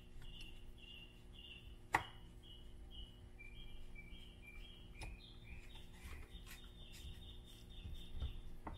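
A bird chirping repeatedly in the background, short high notes about two a second, with a sharp click about two seconds in and another about five seconds in.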